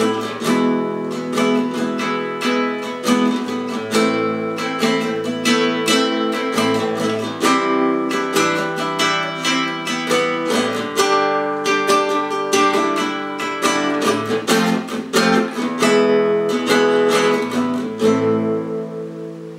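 Acoustic guitar music: a steady run of plucked notes and chords that ring into each other, dying away in the last second or so.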